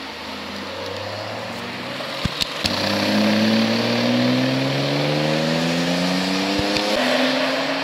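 Car engine revving up and accelerating, its pitch climbing steadily for several seconds, then dropping sharply near the end. A few sharp cracks sound about a third of the way in and again near the end.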